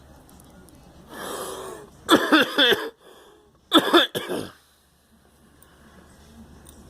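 Coughing in two short fits, each a quick run of about three coughs, the first about two seconds in and the second about four seconds in. A softer, breathy sound comes about a second before the first fit.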